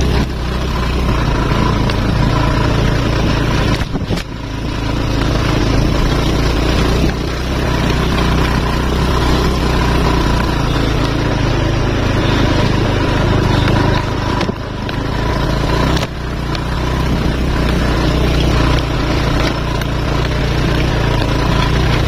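Motorcycle engine running steadily under way on a rough dirt track, with brief drops in engine sound about four seconds in and twice around fourteen to sixteen seconds in.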